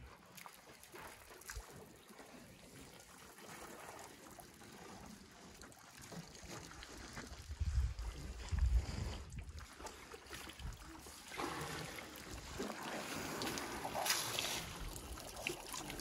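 Elephants drinking at a waterhole: water trickling and splashing from their trunks, with wind gusting on the microphone, strongest about halfway through.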